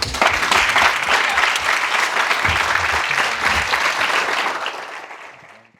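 A crowd of guests applauding, a dense patter of many hands clapping that fades out near the end.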